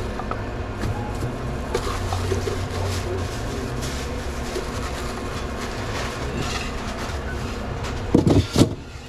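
A steady low machine hum with light clinks, then stainless steel food pans knocking and clanking loudly as they are handled, about eight seconds in.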